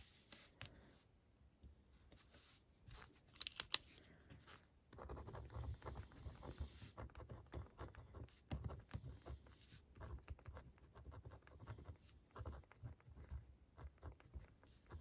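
M&G 0.5 mm gel pen writing on paper: faint, irregular scratching strokes from about five seconds in. A brief sharp crackle comes about three and a half seconds in.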